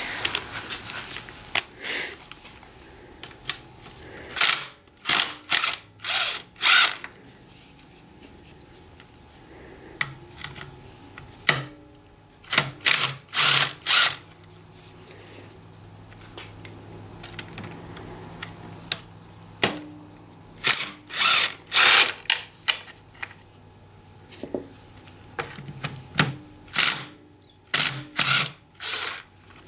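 Power drill with a socket extension spinning out the 10 mm bolts that hold an engine's rear timing belt cover. It runs in short pulls of the trigger, which come in four clusters of brief whirring bursts a few seconds apart.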